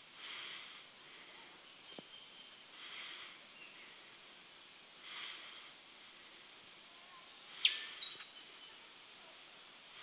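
Quiet creekside ambience: soft raspy buzzes, each about half a second long, come every two to three seconds, and a single short high chirp sounds about three-quarters of the way through.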